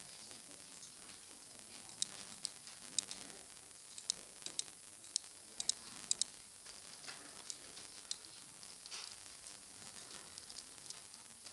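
A run of sharp, short clicks from a computer keyboard and mouse in use, about a dozen bunched together in the first half, then a few fainter ones, over a steady hiss of microphone noise.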